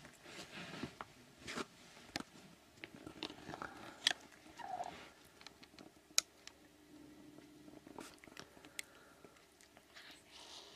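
A cat chewing a mouse it has just killed: irregular crunching, with sharp clicks scattered throughout.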